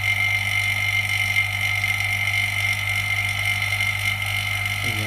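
Steady machine hum with a constant high whine that does not change.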